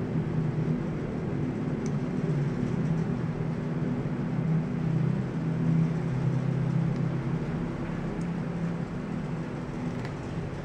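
A steady low mechanical hum, with a few faint crisp clicks from a Shiba Inu gnawing on a raw carrot.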